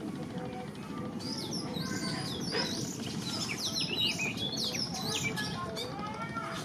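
Many small birds chirping in quick, overlapping calls that start about a second in, over a steady low rumble.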